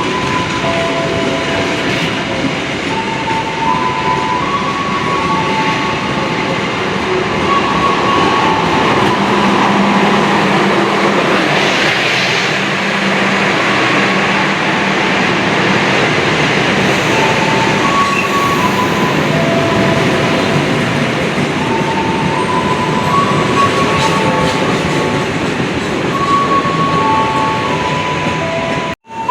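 Electric commuter train running slowly along the track with a steady rail rumble and a brief hiss partway through. A tune of short steady notes at a few pitches plays over it.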